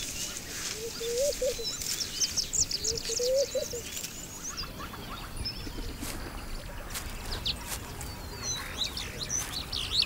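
Birds chirping and calling: many short, high chirps and quick pitch glides scattered throughout, with a lower warbling call twice in the first few seconds, over a faint outdoor hiss.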